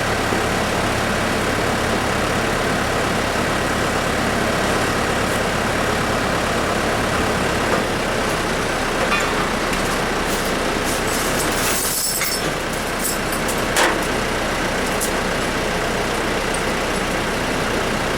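An engine running steadily, with a few short clanks and knocks.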